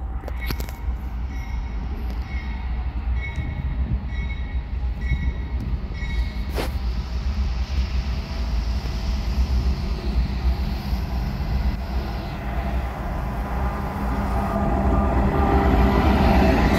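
Norfolk Southern GE diesel freight locomotives approaching and rolling past: a steady deep engine rumble that grows louder over the last few seconds as the lead units and their wheels pass close. A short high ding repeats about once a second in the first few seconds.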